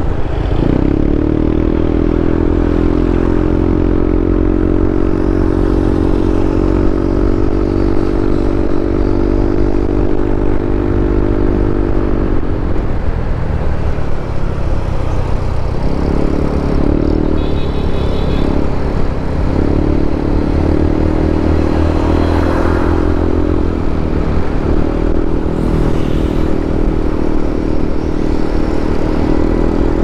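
Motorcycle engine running at a steady pace under heavy wind noise on the microphone. The engine note drops away about twelve seconds in, comes back unevenly, and settles into a steady pull again near twenty seconds.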